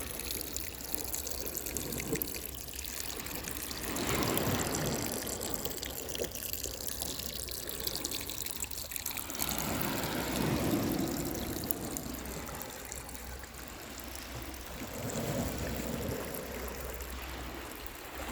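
Sea water washing and trickling over the shore, swelling several times and ebbing between.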